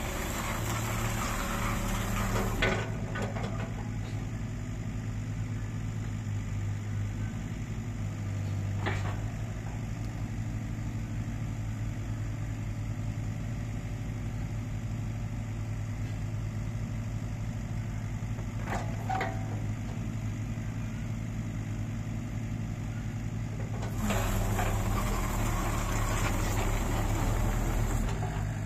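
Kubota KX61-3 mini excavator's diesel engine running steadily while the machine travels and works its hydraulics, clearly louder for the first few seconds and again near the end under load. There are a couple of short clanks in between.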